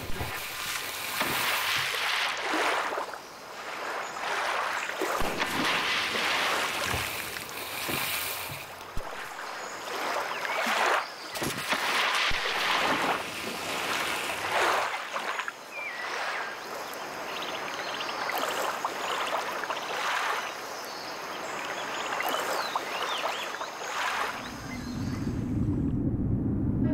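Caimans thrashing in shallow water, throwing up repeated heavy splashes that come in surges. About two seconds before the end the splashing gives way to a low, muffled underwater rumble.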